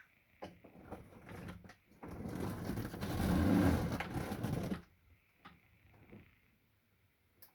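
Mechanical clicks and knocks during bicycle repair work, then a rapid rattle about three seconds long that stops suddenly, with a few faint clicks after it.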